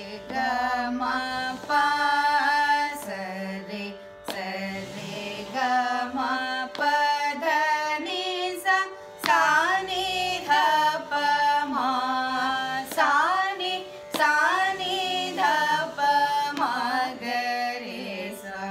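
Two women's voices singing a Carnatic sarali varisai exercise in swara syllables, in raga Mayamalavagowla, in steady stepwise notes over a continuous shruti drone.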